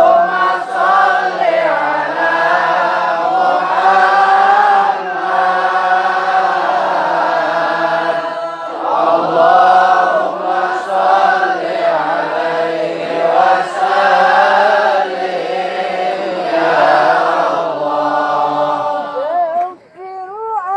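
Male voice chanting Arabic shalawat, devotional praise of the Prophet, in long melismatic phrases, with a short break about halfway through.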